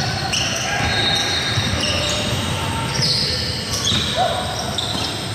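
Pickup basketball game in a gym: the ball bouncing and sneakers on the court giving many short, high squeaks, over a steady din of play.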